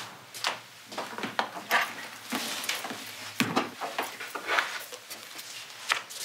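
Irregular light knocks and rustles, a couple a second, of a person moving about: footsteps and the handling of things.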